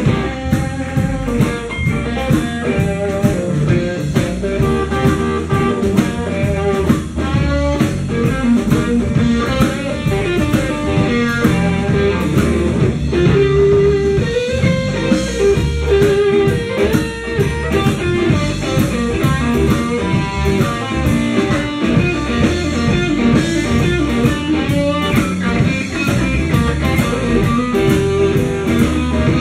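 Blues band playing live, an instrumental passage with electric guitar lines over a drum kit.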